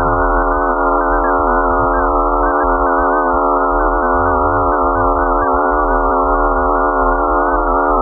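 Synthesized space drone presented as the sound of Phobos, Mars's moon: a dense, steady chord of many held tones with a warbling, flickering upper layer over a low rumble.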